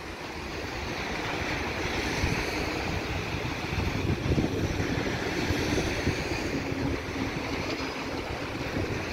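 Freight train of open wagons rolling past: a steady rumble of steel wheels on the rails with dense irregular clatter, and a faint steady tone joining in about halfway.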